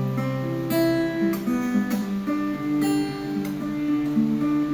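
Acoustic guitar strumming chords: the instrumental introduction to a song.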